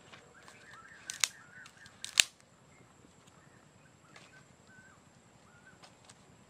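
Two sharp wooden cracks about a second apart, the second louder, as sticks are handled in a small wood fire. Faint high bird-like chirps are heard in the background.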